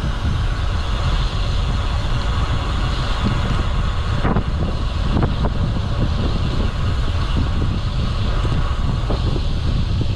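Wind buffeting the microphone of a camera riding on a moving bicycle: a steady low rumble. A few sharp knocks sound around the middle.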